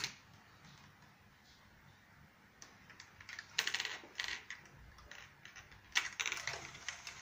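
Small Lego WeDo 2.0 motorised tow robot and its chain-hitched trailer clicking and rattling in plastic, starting about two and a half seconds in, with louder clatters about three and a half seconds in and near the end.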